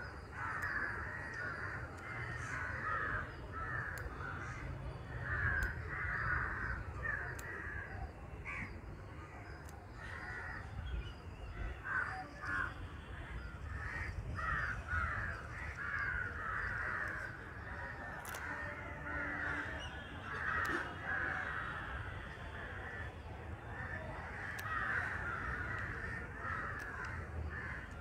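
Crows cawing over and over, in runs of several short calls, with a steady low rumble beneath and a few faint sharp clicks now and then.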